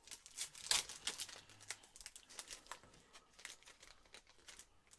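Foil trading-card pack wrapper being torn open and crinkled, a quick run of crackles loudest just under a second in, then thinning out.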